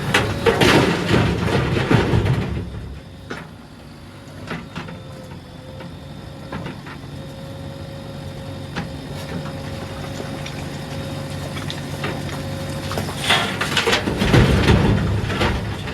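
JCB 3DX backhoe loader's diesel engine working: loud for the first couple of seconds, dropping to a lower steady running with a few scattered knocks, then loud again about thirteen seconds in.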